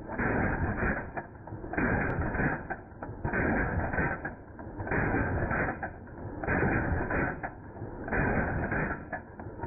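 Century Arms C39V2 AK-pattern rifle in 7.62×39mm firing a magazine dump, the audio slowed down with the slow-motion footage. Six shots, each drawn out into a deep boom about a second long, come roughly one every second and a half.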